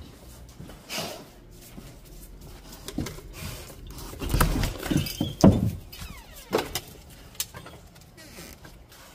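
Newborn puppies giving a few short whimpers that fall in pitch, mixed with scattered knocks and clatter.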